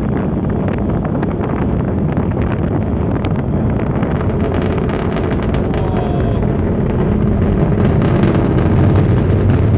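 Distant rumble of a Falcon 9 rocket's nine Merlin 1D first-stage engines during ascent: a deep, continuous rumble with sharp crackles that grows louder near the end.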